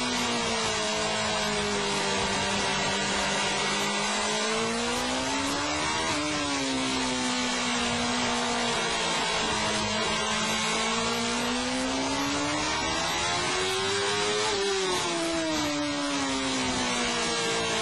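Superbike engine on an onboard lap. Its pitch climbs slowly under throttle and drops sharply twice, about six seconds in and near the end, over a steady rush of wind noise.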